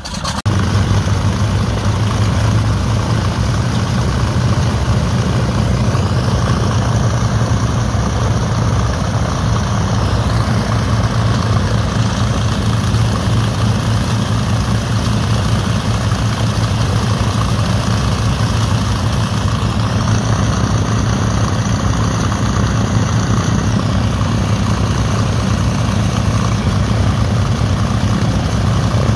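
Dassault Flamant's air-cooled inverted V12 piston engine running steadily at idle with its propeller turning, a deep even drone that cuts in suddenly at the start.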